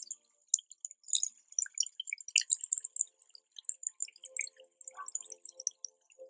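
Irregular, high-pitched drip-like plinks, with a faint steady low tone coming in about four seconds in.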